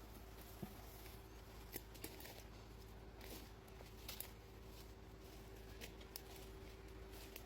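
Near silence, with a faint steady hum and about eight faint, scattered clicks.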